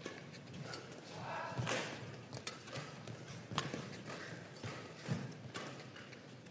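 Badminton rally: sharp racket strikes on the shuttlecock roughly every two seconds, with lighter thuds of the players' footsteps on the court between them.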